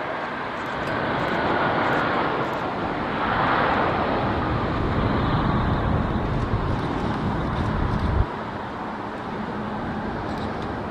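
Boeing 777 Freighter's GE90 jet engines running as the airliner rolls out along the runway after landing. The noise is a broad rumble that swells over the first few seconds, then drops off abruptly about eight seconds in to a lower, steadier noise.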